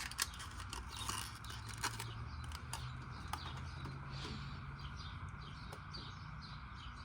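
A bird chirping repeatedly, short falling notes a few times a second from about halfway in, over a low steady hum. A few light clicks and taps sound near the start.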